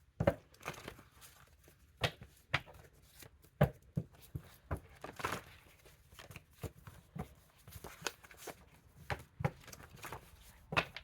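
A deck of reading cards being shuffled and handled: a run of irregular sharp taps and flicks, with a longer rustle about five seconds in.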